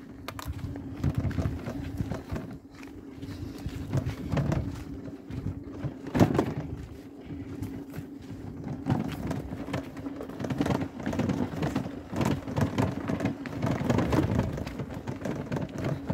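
A scooter being pushed by hand with its engine off over rough ground and through dry brush: irregular crunching and rustling of footsteps, tyres and branches, with a sharp knock about six seconds in. A steady low hum runs underneath.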